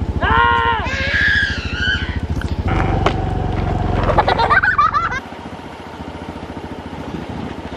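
A vehicle engine idling close by, a fast, even low throb, with brief voices and exclamations over it; the throb drops away sharply about five seconds in.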